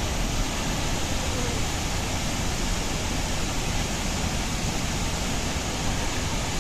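A large waterfall running in the rainy season, its falling water making a steady, even rushing noise that does not change.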